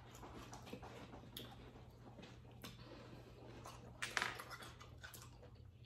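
Faint scattered clinks and taps of spoons against glass bowls and tableware on a counter during eating, with a slightly louder brief sound about four seconds in.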